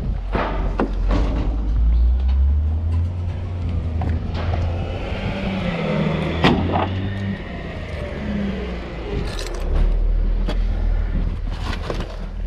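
Diesel engine of a Volvo wheel loader running, its revs rising and falling, with several sharp knocks, the loudest about six and a half seconds in.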